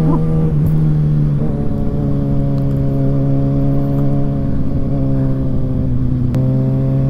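Kawasaki inline-four motorcycle engine running at a steady cruise on the move, over wind rush. Its pitch shifts slightly about a second and a half in, and again with a sharp click about six seconds in.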